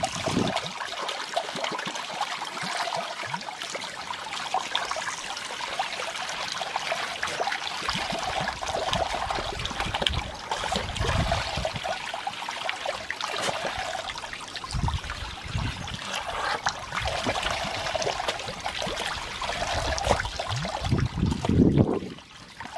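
Water streaming and splattering from a hose, steady with uneven surges, with a few low rumbles near the middle and toward the end.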